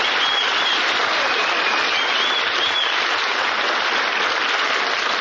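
Studio audience applauding, a dense, even clapping that holds steady throughout.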